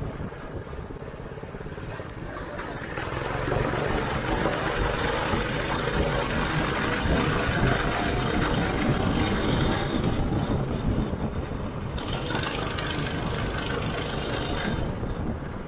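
Cycle kart's small engine running while the kart is driven along the road. It grows louder about three seconds in, dips briefly, and drops back near the end.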